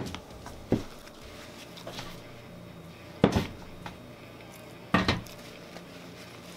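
Dishes clattering on a tabletop: a bowl knocking against a metal baking sheet as it is moved and set down on it. There are four sharp knocks, the loudest about three and five seconds in.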